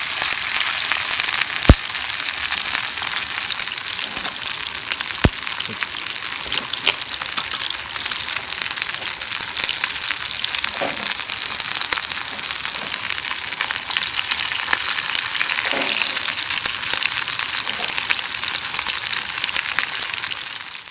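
Sardines sizzling steadily in a pan over a campfire, a continuous frying hiss. Two sharp clicks stand out, the loudest about two seconds in and another about three and a half seconds later.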